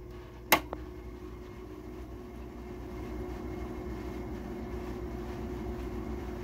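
Haier HW-05CA12 5,000 BTU window air conditioner being switched from low to medium: one sharp click of the control knob about half a second in, then the fan running steadily, growing louder about three seconds in as the fan speeds up. Collected water is slinging inside the unit.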